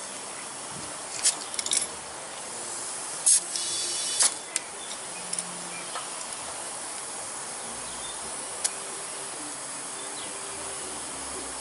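Compressed air hissing in short spurts as an air chuck is pressed onto a lawnmower tire's valve stem to inflate it, the longest burst lasting about a second a little over three seconds in, with sharp pops of air where the chuck seats and releases.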